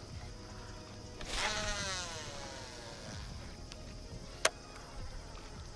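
A baitcasting fishing reel whirring as line pays out on a cast, its pitch falling as the spool slows, followed by a single sharp click a few seconds later. Night insects buzz steadily in the background.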